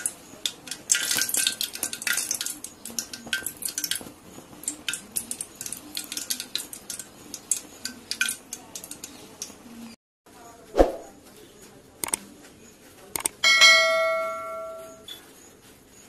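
A mixture of petrol, diesel and oils burning in a steel bowl, crackling with rapid, irregular sharp pops for about ten seconds. After a brief cut, a few thumps and clicks and then a ringing bell chime follow: the subscribe-button sound effect.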